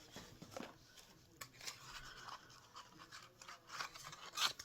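Faint rubbing and scraping of a cardboard ornament box being handled, with scattered light clicks and a louder rustle near the end.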